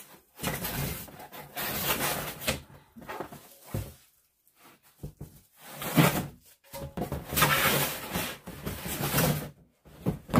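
Pots, pans and their packaging being handled while a cookware set is unpacked: rustling and scraping in two stretches with a short pause in between, and a sharp knock about six seconds in.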